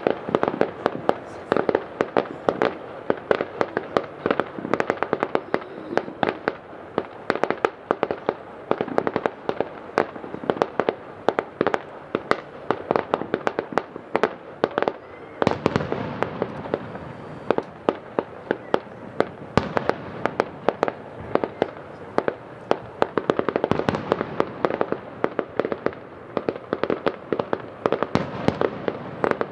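Fireworks display heard from about 700 m away: a dense, unbroken string of bangs and crackling reports from bursting shells, many per second.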